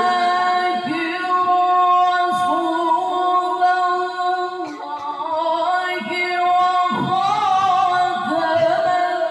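A man's high, clear voice reciting the Quran in the melodic tilawah style: long held notes with wavering, ornamented turns, sung unaccompanied into a handheld microphone.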